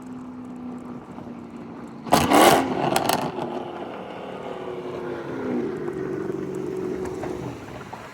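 Chrysler 300 with a Hellcat V8 running past. About two seconds in there is a loud sudden burst, then a couple of sharp exhaust pops around three seconds, and the engine note then holds steady and fades.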